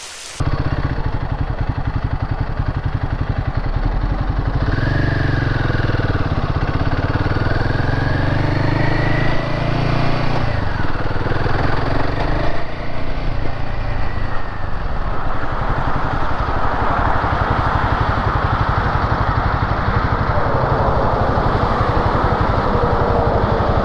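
Royal Enfield Himalayan's single-cylinder engine running while under way, its note rising and falling through the middle of the stretch, over a steady hiss of wind and road noise.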